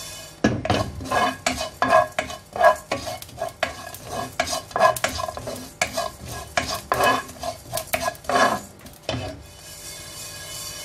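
A spatula stirring and scraping fenugreek and cumin seeds around a nonstick pan as they roast: rapid, irregular scraping strokes that start about half a second in and stop a little after nine seconds.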